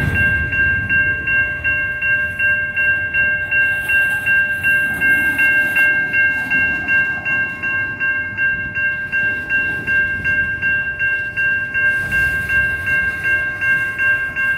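Safetran Type 3 electronic crossing bell ringing in rapid, even dings, over the low rumble of coal hopper cars rolling through the crossing.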